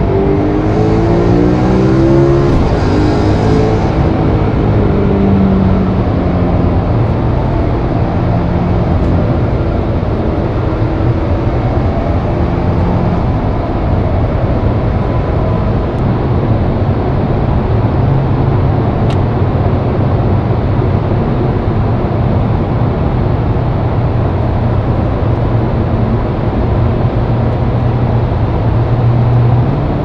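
BMW E92 M3's naturally aspirated 4.0-litre V8 under way. The engine note climbs and shifts in pitch over the first few seconds as the car accelerates, then holds steady at a cruise, with road and tyre noise throughout.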